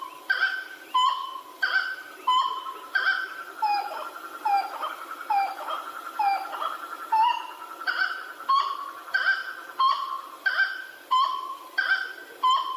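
A bird calling over and over in short, clear notes, about three calls every two seconds, with a run of quick downward-slurred notes in the middle.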